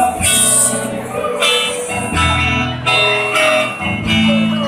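A live rock band playing through the stage PA, with guitar, heard from among the audience.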